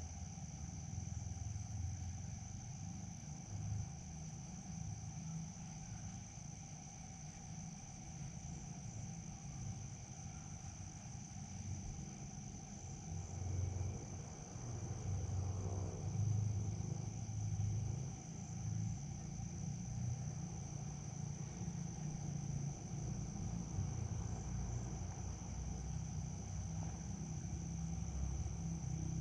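Crickets chirring in one steady high, continuous tone, over a low uneven rumble that grows somewhat louder about halfway through.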